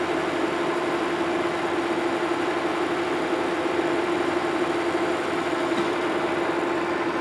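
Metal lathe running steadily, turning a section of the mandrel down to about three-quarters of an inch: an even machine hum with one strong low tone through it.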